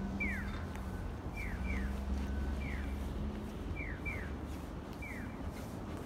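Electronic 'piyo-piyo' chirps of a Japanese audible pedestrian crossing signal, short falling chirps repeating as a pair, then a single, about once a second. Underneath is a low rumble, with a steady low hum during the first half.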